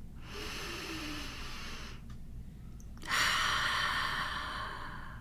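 A woman breathing out in two long, breathy sighs, the second louder and fading away.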